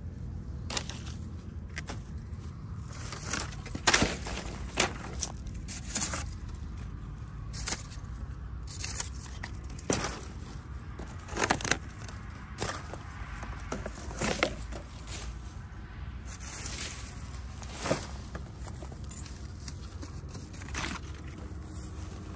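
A long metal blade scraping and striking dry ground and grass and rustling plastic and paper litter, in irregular sharp knocks and scrapes about a second or so apart, over a steady low rumble.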